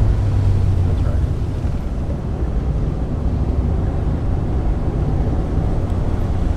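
A 1995 Mazda Miata's 1.8-litre four-cylinder engine heard from inside the cabin on track, its revs dropping a little at the start and then holding steady. Under it runs an even rush of road and tyre noise.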